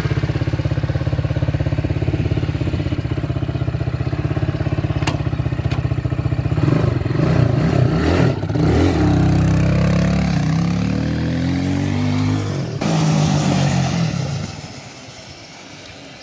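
ATV engine idling steadily, then revving as the quad pulls away and accelerates, its note rising in pitch several times. The sound drops off sharply near the end as it rides into the distance.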